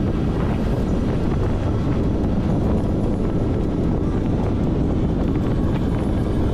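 Loud, steady wind rush on the microphone of a road bike descending at about 40 km/h with the rider freewheeling, with faint irregular ticks above it.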